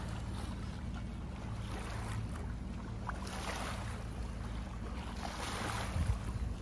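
A sailboat's engine runs at a steady low hum while the boat is under way, under a hiss of wind and water that swells a few times.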